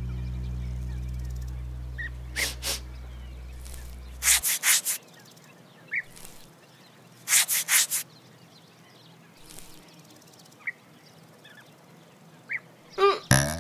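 Grasshopper chirping in short clusters of three or four quick pulses, a few seconds apart, as a cartoon sound effect. Music fades out under the first cluster, and faint short high chirps fall between the clusters.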